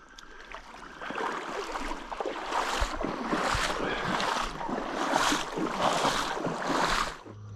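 Water sloshing and splashing around legs wading through a shallow river, swelling about once a second with each stride. It cuts off suddenly near the end.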